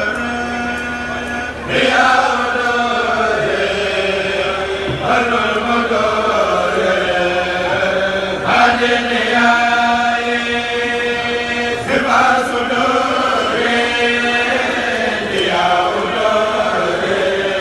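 A group of men chanting Mouride khassaid religious poems together into microphones, long held melodic lines with a new phrase starting every three to four seconds.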